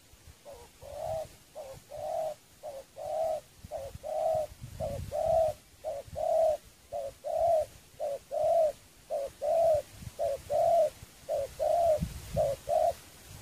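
Spotted dove cooing in a long run of paired notes, a short coo followed by a longer one, about once a second. This is a dove's display call while two doves face off at close range on the ground.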